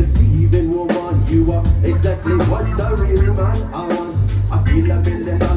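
Live band playing a song, with bass, drums, electric guitar and keyboard. Heavy bass under a steady drum beat.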